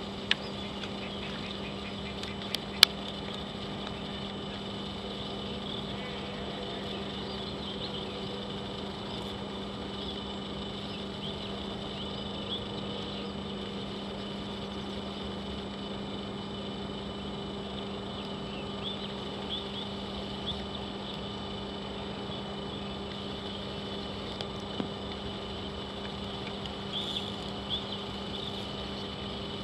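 A steady mechanical hum that holds one low pitch throughout, with a couple of sharp clicks in the first few seconds and faint short chirps over it.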